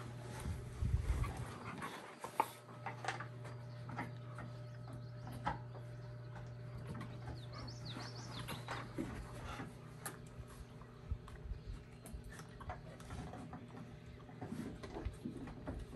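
Labrador puppies and an adult Labrador panting and scuffling over a stuffed toy in a game of tug, with scattered light clicks and knocks. A steady low hum and a few bird chirps sound behind.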